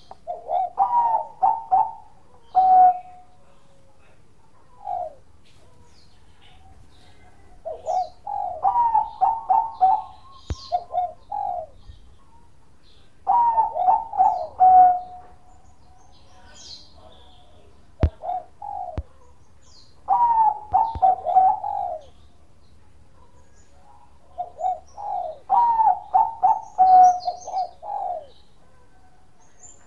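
Bangkok-bred zebra dove (perkutut) singing its cooing song: about six phrases of quick rolling coos, each a few seconds apart. Faint high chirps of other birds sit in the background.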